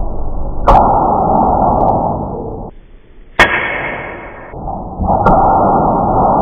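Heavy single blows of a Little Giant power hammer onto a glowing steel billet, each a sharp impact followed by a long, dull rumbling tail. Between them comes one sharp hand-hammer strike.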